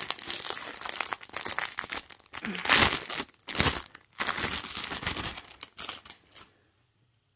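Clear plastic bags crinkling and rustling as doll clothes are handled and unwrapped, loudest about three seconds in and stopping a little over six seconds in.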